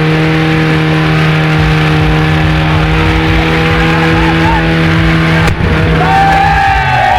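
Chevrolet Chevette's engine held at steady high revs while its tyres spin in a burnout, with tyre squeal. Near the end the revs drop and shouting voices come in.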